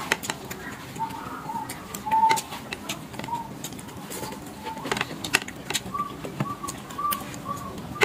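Eating sounds: plastic chopsticks clicking against a woven bamboo plate while picking up fried meatballs, and chewing. Behind them a bird calls over and over in short notes, the series stepping a little higher in pitch around six seconds in.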